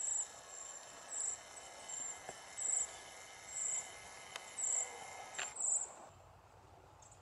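Insects chirping in the field: a high-pitched pulse repeating roughly once a second over a steady background of insect sound. The chirps stop about six seconds in.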